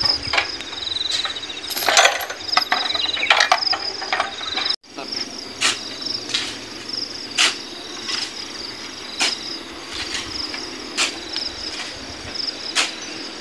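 Shovel scooping river sand and throwing it into a dump truck's bed by hand, a stroke about every two seconds, over steady insect chirping.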